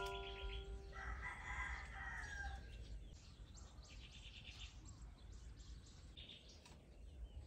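A rooster crows once, faintly, about a second in, the call falling away at its end after about a second and a half. Small birds chirp in short high trills a few times.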